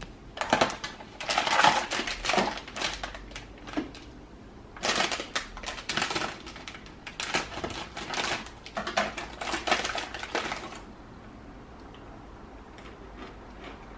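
Snack packaging being opened: a plastic bag crinkling and rustling in repeated crackly bursts as it is handled and cut open with scissors.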